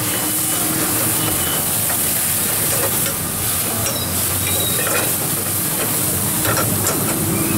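Onion, tomato and garlic frying hard in hot oil in a wok over a gas burner, sizzling steadily while a metal ladle stirs and tosses them.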